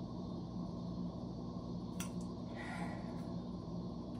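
Steady low room hum, with one sharp click about two seconds in and a soft rustle just after.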